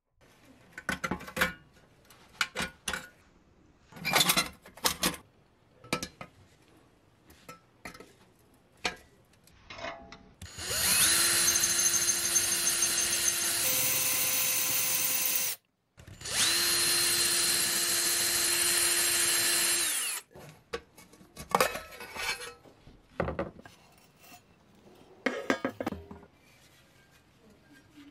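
Power drill running in two steady bursts of about four to five seconds each, with a brief stop between them. Scattered clicks and knocks come before and after the runs.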